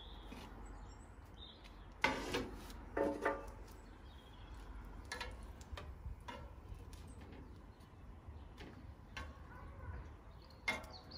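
Metal barbecue tongs clinking against a gas grill's grate as cooked sausages are lifted off: a few separate sharp clinks, some with a short metallic ring. Faint bird chirps sound in the background.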